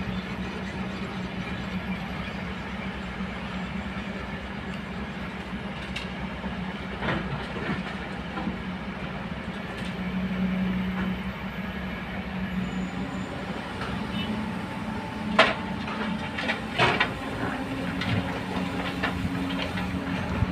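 Diesel engines of a Komatsu PC200 and a Kobelco hydraulic excavator running steadily while they dig, the engine note swelling briefly about ten seconds in. A few sharp knocks come about fifteen to seventeen seconds in.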